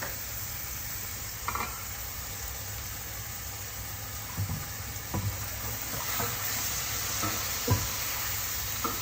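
Half-boiled mixed vegetables sizzling steadily in hot oil in a pan, with a few knocks and scrapes of a spoon stirring them. The sizzle grows a little louder about six seconds in.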